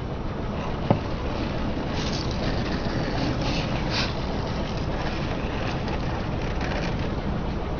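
Car tyre rolling slowly over crunchy objects and crushing them, with a steady low rumble from the car and a run of crackling crunches about two to seven seconds in; a single sharp click comes about a second in.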